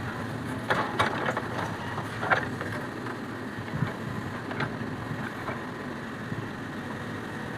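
Mahindra backhoe loader's diesel engine running steadily, with a few sharp knocks in the first few seconds.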